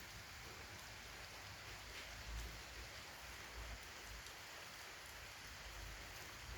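Steady rain falling, an even hiss with faint individual drop ticks.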